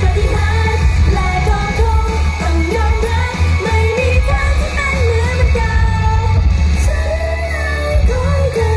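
Live, amplified idol-pop performance: a group of female voices singing the melody over pop music with a heavy, steady bass.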